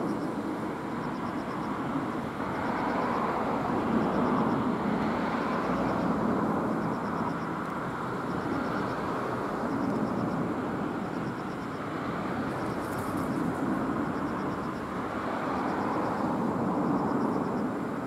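Distant road traffic: a steady rush that swells and eases every few seconds as vehicles pass.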